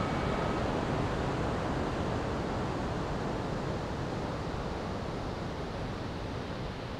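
Steady rushing noise with no rhythm or tone, fading slowly, while the ring of a chime dies away in the first half-second.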